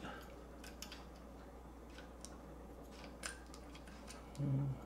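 Light, irregular clicks and ticks of small plastic and metal micro RC helicopter parts (main shaft, bearing, gears) being handled and pushed together by hand. A brief low hum of a voice comes near the end.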